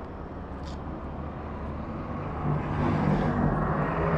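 Road traffic: a motor vehicle passing close by, growing louder from about two and a half seconds in over a steady low rumble.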